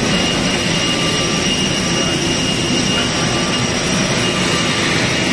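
Aircraft turbine engines running on the apron: a loud, steady rush of engine noise with a faint high whine held throughout.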